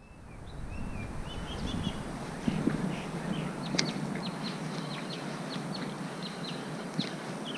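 Small birds chirping in quick, short, high chirps over a steady low outdoor background, with a few sharp clicks. The sound fades in at the start.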